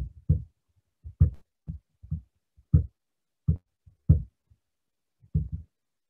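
A dozen or so short, dull knocks at irregular intervals, with dead silence between them.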